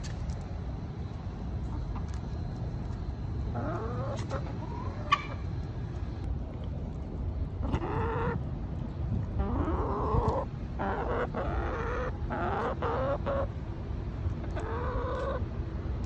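Chickens clucking and calling, a series of short upward-gliding calls that come thickest in the middle and again near the end.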